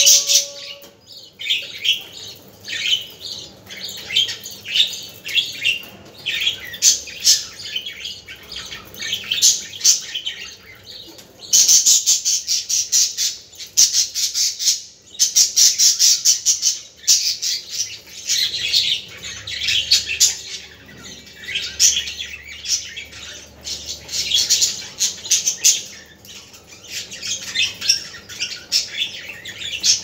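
Caged budgerigars chattering and chirping in quick, overlapping runs of high chirps. About a third of the way through there is a stretch of unbroken, rapid chirping.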